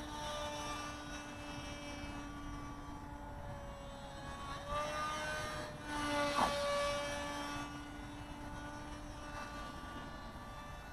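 Motor and propeller of a small foam RC flying wing, a steady whine that shifts a little in pitch as it flies overhead. About six seconds in it briefly grows louder, with a quick drop in pitch.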